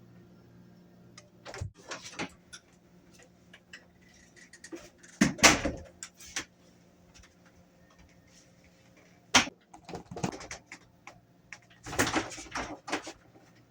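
Knocks, thumps and rattles of a refrigerator door being banged on and pulled at, in scattered bursts, over a faint low hum. The heaviest blows come about five seconds in, again near nine seconds, and around twelve seconds.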